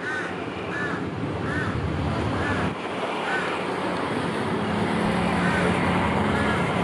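GE diesel-electric locomotive approaching slowly, its engine drone growing louder past the middle. Short high chirps repeat over it about every 0.7 s.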